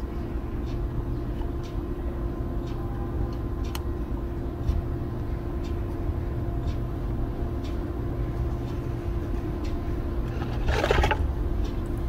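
A steady mechanical hum with a constant low tone, with faint small clicks now and then and a short scraping rustle near the end.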